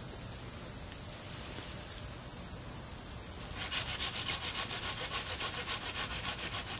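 Hand saw cutting through an overhead tree branch, starting about halfway in with quick, even back-and-forth strokes, over a steady high drone of insects.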